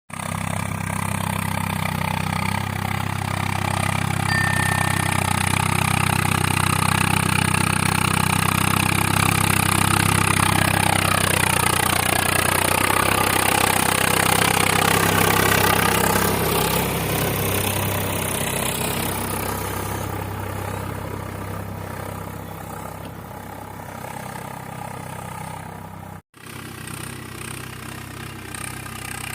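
Heavy diesel engine running steadily. It grows louder until about halfway, with a pitch that sweeps, then fades. It breaks off for an instant near the end.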